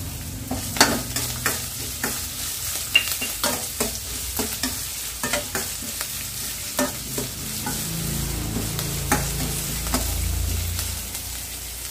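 Chopped green chillies and a tempering of mustard seeds and dals sizzling in hot oil in a stainless steel kadai. A spoon scrapes and clinks irregularly against the pan as they are stirred.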